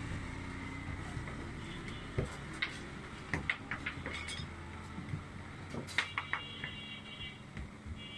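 Scattered sharp clinks and taps of bakers' rolling pins and a metal scraper knocking on the work surface as flatbread dough is rolled and shaped by hand, over a steady low hum. The taps come in two clusters, through the middle and again about six seconds in.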